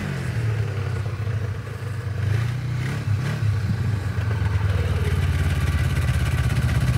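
Yamaha snowmobile engine running as it is ridden. Its pitch drops right at the start and then holds fairly steady, getting a little louder over the last couple of seconds.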